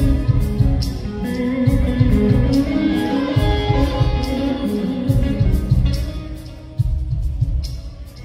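Live metal band: an electric lead guitar playing long held melodic notes over pulsing bass drum and cymbals, played loud through the stage amplification.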